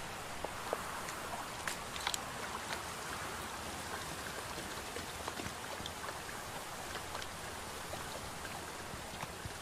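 Stream water running steadily, with faint small drips and splashes.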